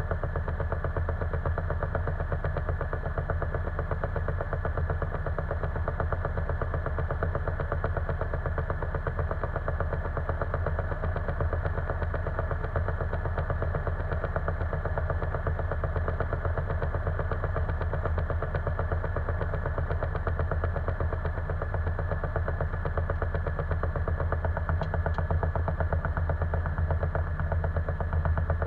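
Single-engine light aircraft's piston engine and propeller running steadily, heard from inside the cockpit, with a deep, even drone. It grows a little louder in the last few seconds as power comes up for the takeoff.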